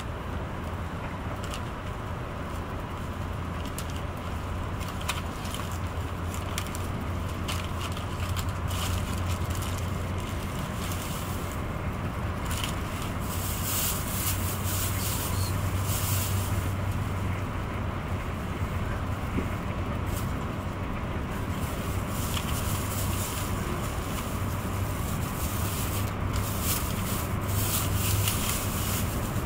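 Cabin noise inside a Renfe AVE Class 102 (Talgo 350) high-speed train running at speed: a steady low hum and rumble under an even rush of air and track noise. Short hissy swells come now and then, and the noise grows a little louder after the first few seconds.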